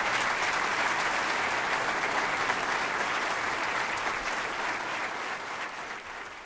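Large audience applauding, dense steady clapping that fades away near the end.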